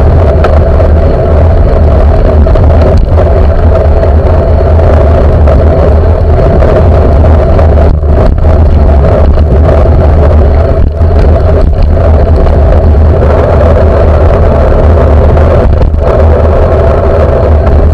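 Steady rumble and road noise from a camera on a moving bicycle, riding in traffic. Heavy low rumble throughout, with no distinct events.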